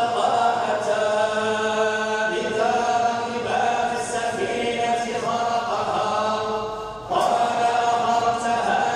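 Quran recitation chanted in long, held melodic notes, with a brief pause for breath about seven seconds in.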